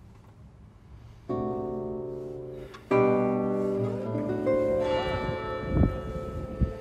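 Background solo guitar music: plucked chords ring out about a second in, and a louder chord with more notes follows about three seconds in.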